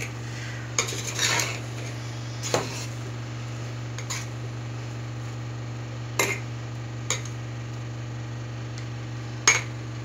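Metal spoon stirring cooked rice in a metal pot, scraping and knocking against the pot's sides in about seven short sharp clinks, the loudest near the end, over a steady low hum.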